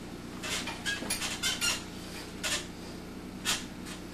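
Short scratchy squeaks and rustles as a person shifts about on a bed: several in quick succession in the first two seconds, then a few single ones.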